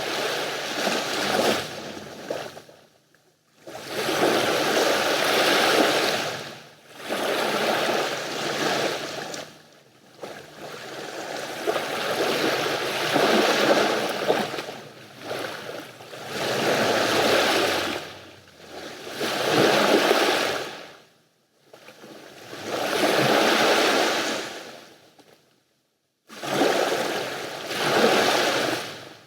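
Mediterranean sea waves breaking and washing in, one surge every two to four seconds, with short lulls between.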